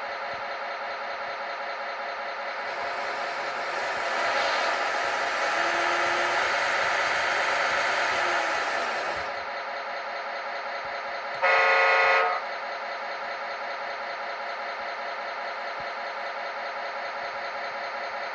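A horn sounds once for about a second, over a steady machine drone that swells louder for several seconds in the middle.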